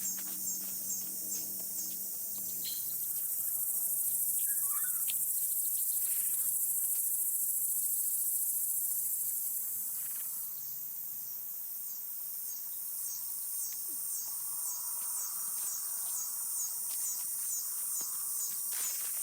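Evening chorus of insects, a shrill high-pitched trill. It pulses about twice a second, swells into a steady drone for several seconds in the middle, then falls back into pulsing.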